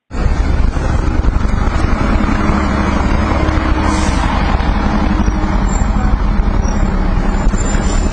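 A motor vehicle engine running steadily with street noise, cutting in abruptly at the start.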